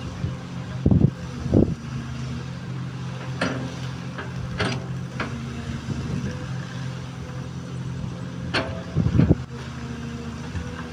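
XCMG XE215C excavator's diesel engine running steadily, with a few short knocks and clunks from the working machine scattered through it.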